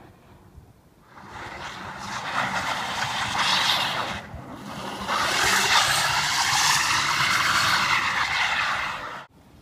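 Tesla Model S P85's tyres spinning and throwing snow as the car slides sideways, heard as a loud rushing hiss. It comes in two long surges, the second starting about five seconds in, and cuts off suddenly near the end.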